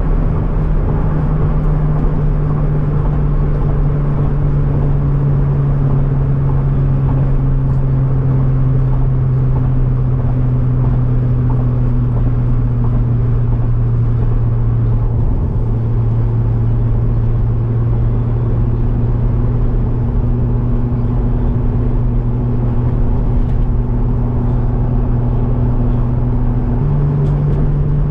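Car engine and road noise while driving at a steady speed: a constant low engine drone that drops slightly in pitch about halfway through and rises again near the end.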